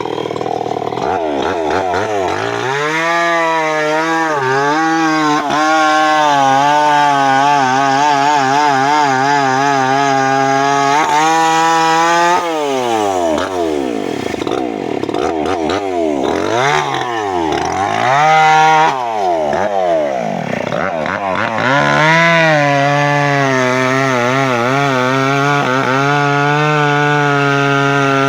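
Two-stroke chainsaw running at full throttle and cutting teak, its pitch wavering under load. About twelve seconds in it drops back and is revved up and down several times, then runs at full throttle again from about twenty-two seconds.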